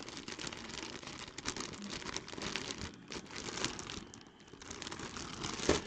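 Clear plastic bag around a jersey crinkling as it is handled, a steady run of small crackles with one louder crinkle near the end.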